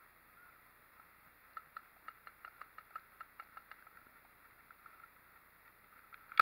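Paintball markers firing in rapid strings: a faint run of pops, about six a second, from about a second and a half in to nearly four seconds, then a much louder shot from a nearby marker right at the end.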